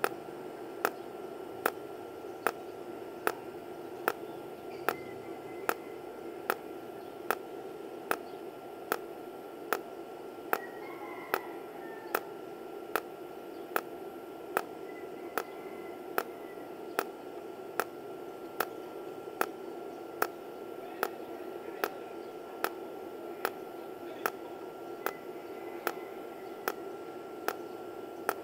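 Tenya TIG250PC welder in cold TIG mode, pulsing its arc automatically: an evenly spaced sharp tick with each pulse, about every 0.8 seconds, each tick one spot of the weld being laid, over a steady hum and a faint high whine.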